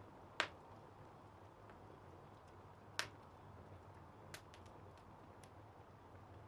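Fire in a fireplace crackling: a sharp pop about half a second in and another at three seconds, then a quick run of smaller crackles a little after four seconds, over a faint steady hiss.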